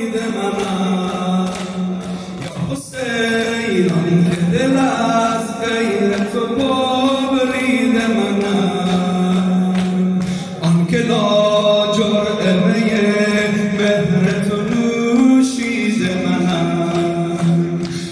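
Persian Muharram mourning lament (noha) sung unaccompanied by a male eulogist through a microphone and loudspeakers, in long, held, wavering lines with short breaks for breath.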